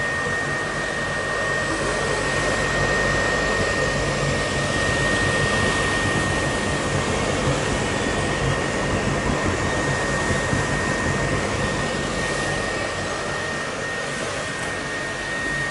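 Electric inflation blower running steadily, keeping an inflatable model filled with air: a constant rush of air with a thin, steady high whine and a low hum underneath.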